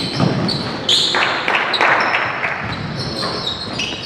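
Basketball game play in a large gym: the ball bouncing on the hardwood court and sneakers squeaking in short, high-pitched chirps.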